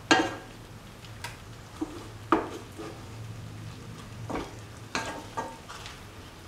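A slotted spatula stirring chicken liver pieces and carrot rounds in a pan. It scrapes and knocks against the pan in about eight short strokes, the loudest just after the start and about two seconds in.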